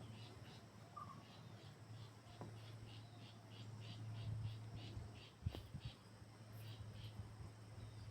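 Faint insect chirping in even pulses, about five a second, which thin out after about five seconds. A low steady hum runs underneath, and there are a few soft clicks about five and a half seconds in.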